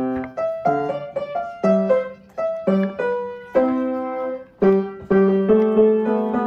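Background piano music: a slow melody of single struck notes and chords, each note starting sharply and fading away.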